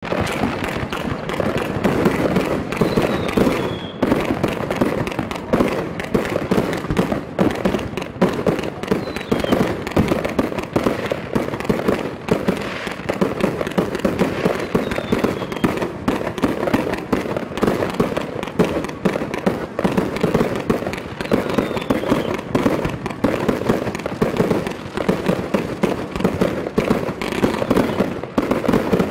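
Multi-shot firework cake (Caffero 5116 Fan-Brocade crown) firing its tubes in quick succession, launch thumps and brocade crown bursts overlapping into a dense, continuous crackle of shots. It begins abruptly.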